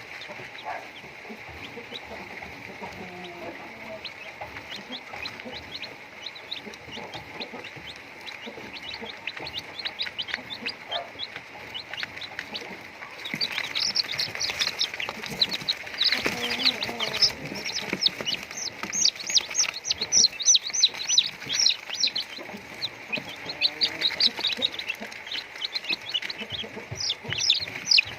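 A flock of chickens clucking and peeping while being fed. Many short, high calls overlap, growing denser and louder from about halfway through.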